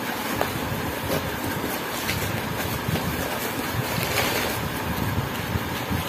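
Crinkling and rustling of crumpled packing paper and cardboard as a parcel is unpacked by hand, with a few faint crackles over a steady background hiss.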